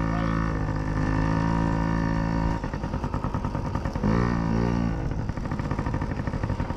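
Small dirt bike engine running: a steady tone for the first couple of seconds, which cuts off sharply, then a choppy, rapid putter. The pitch rises briefly about four seconds in.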